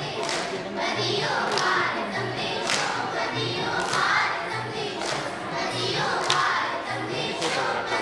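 A group of children singing together in chorus over a steady low drum beat, about two beats a second.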